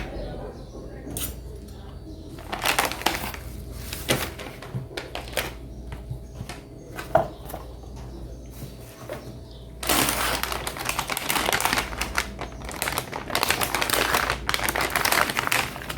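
Packaging being handled while a graphics card is unboxed: scattered light clicks and knocks, then from about ten seconds in a longer spell of rustling and crinkling.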